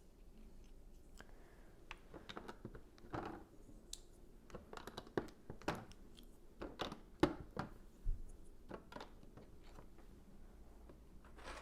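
LEGO bricks being handled and pressed together: an irregular run of small plastic clicks and rattles.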